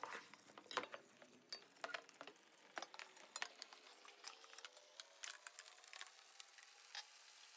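Faint, irregular clicks and scrapes of a utensil stirring chicken pieces into a thick spice masala in a pan on the stove.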